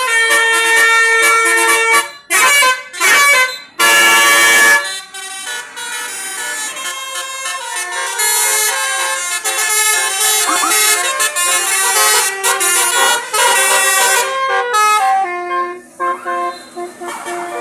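Basuri telolet horn on a bus, a multi-tone air horn sounding a melody in stepped notes. It starts with a held chord, breaks into a few short blasts, then plays a long run of changing notes with a brief break near the end.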